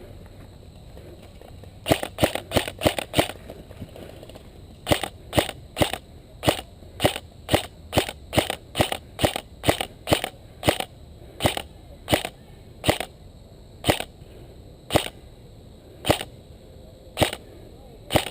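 Airsoft rifle firing close to the microphone: a quick string of about six shots, then a long run of single shots about two a second, slowing to about one a second near the end.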